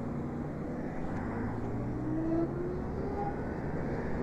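Zero SR electric motorcycle riding: steady wind and road rumble, with a faint motor whine that rises in pitch around the middle as it picks up speed.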